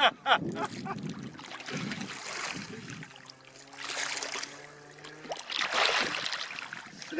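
Water splashing as a released wels catfish about a metre long thrashes at the surface in shallow water, in a few short bursts, the loudest about six seconds in. A faint steady low hum runs through the middle.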